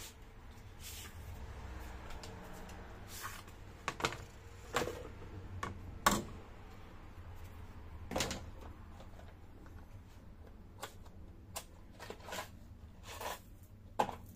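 Chainsaw parts being handled and set down on a metal workbench, among them a Stihl guide bar laid next to the saw: a string of scattered knocks and clicks, the loudest about six seconds in, over a low steady hum.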